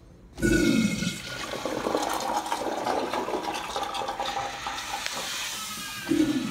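Urinal flush valve flushing: a sudden rush of water about half a second in, running on as a steady wash, with a second surge near the end.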